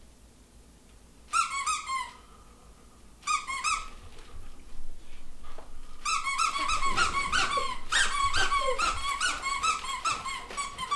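Squeaky plush dog toys squeezed by hand: two short runs of squeaks in the first few seconds, then rapid, nearly continuous squeaking from about six seconds in.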